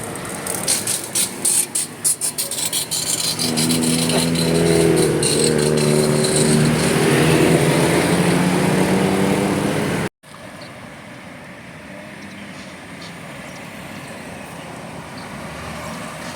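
A bus's multi-note telolet horn sounds a string of held notes that step between pitches for several seconds over the vehicle's engine, after a run of sharp clicks. About ten seconds in it cuts off abruptly, leaving quieter vehicle noise.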